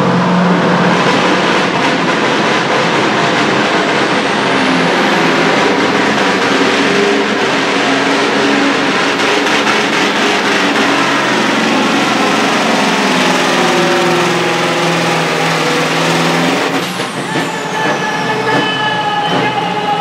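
Scania pulling truck's diesel engine running flat out while dragging the weight-transfer sled, its pitch slowly sinking as the load builds. About three quarters of the way through it comes off power and a high whistle falls away.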